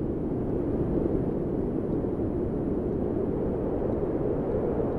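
A steady, low rumble of noise with no clear tone or rhythm. It gets slightly louder right at the start.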